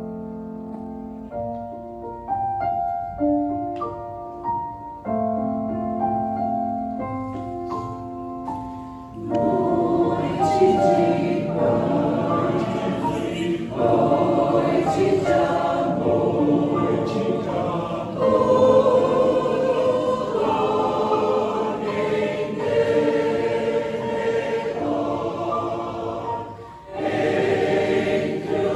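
A keyboard plays a short interlude of chords. About nine seconds in, a church choir comes in singing a Christmas carol over it and carries on to the end, with a brief pause between phrases near the end.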